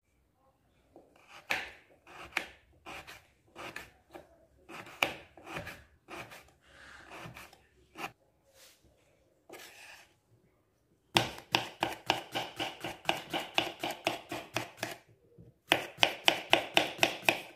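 Kitchen knife cutting on a wooden cutting board: slower, uneven cuts through a ginger root, then quick even chopping of a cucumber into rounds, about five strokes a second, in two runs with a short break between them.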